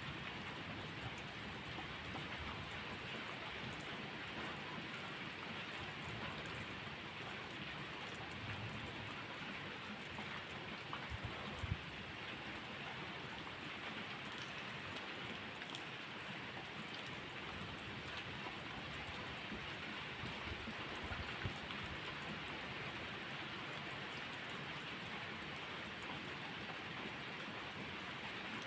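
Steady rain falling, an even hiss, with a faint low rumble underneath in the first half and two sharp clicks partway through.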